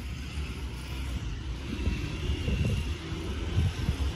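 Wind buffeting a handheld microphone outdoors: a low rumble with irregular gusty surges that grow stronger in the second half.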